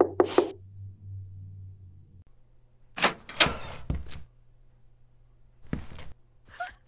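A wooden interior door being opened: sharp clicks and knocks of the doorknob and latch, a few at the start and a cluster about three seconds in, with a couple more light knocks near the end.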